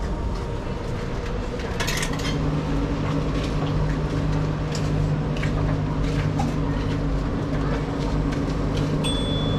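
Car being driven: steady engine and road noise with a low engine hum that grows stronger about two seconds in, and scattered light clicks.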